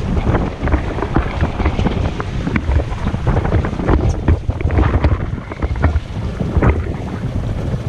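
Wind buffeting the microphone in a heavy low rumble, over water splashing around a boat at sea, with scattered short knocks.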